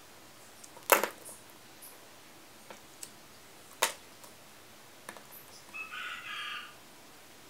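Handling sounds while finishing a paracord watch band: a few sharp clicks and taps, the loudest about a second in and another near four seconds. A brief pitched animal call comes about six seconds in.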